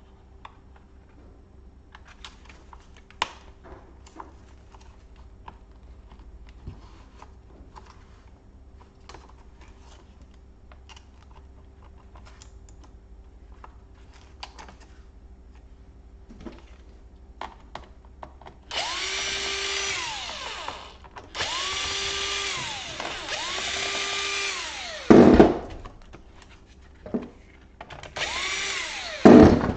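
Small electric screwdriver working laptop screws: faint clicks of small parts being handled, then four short runs of the motor whining, each spinning up and winding down, with two sharp knocks in the last few seconds.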